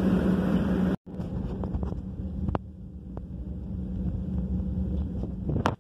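Airliner cabin noise: a steady low rumble and hum of the engines and air, which breaks off briefly about a second in and comes back quieter. A few light clicks sound over it, the loudest near the end.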